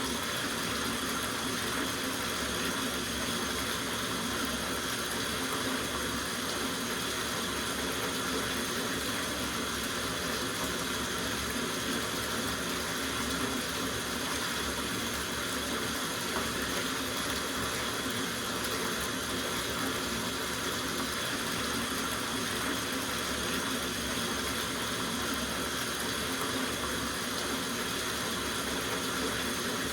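Water running from the tap into a soaking bathtub, a steady, unbroken rush and splash of the stream filling the tub.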